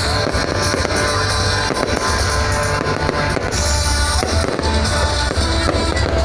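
Fireworks going off in quick succession, sharp bangs and crackling, over loud music with a heavy bass beat.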